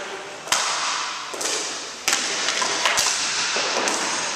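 Floor hockey play: hockey sticks clacking against each other and striking the ball or puck, about six sharp hits, each ringing on in the large gymnasium.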